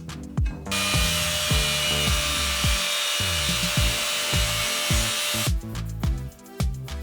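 Power tool cutting steel for about five seconds, a loud steady hissing whine that starts shortly after the beginning and stops abruptly, over background music with a steady beat.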